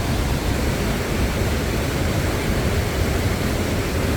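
River water rushing over rocks and a waterfall: a steady, even roar of flowing water with no breaks.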